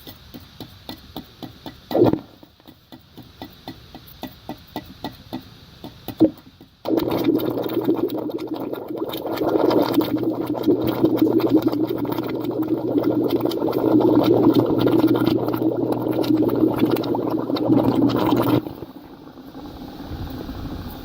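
Underwater stick-welding arc from a 7018 electrode at 250 amps. For the first seven seconds the arc sputters with rapid pops and crackles and two louder bangs as it tries to strike. About seven seconds in it holds as a steady, loud, buzzing crackle for roughly eleven seconds, then cuts off suddenly.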